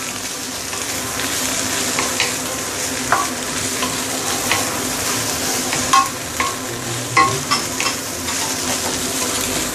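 Shredded Chinese cabbage and carrot sizzling steadily in a hot stainless steel pan as a wooden spatula tosses them, with several short knocks of the spatula against the pan.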